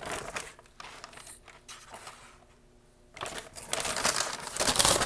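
Crinkling and rustling of a McDonald's paper takeout bag being handled, in short bursts, then louder and denser rustling in the last two seconds.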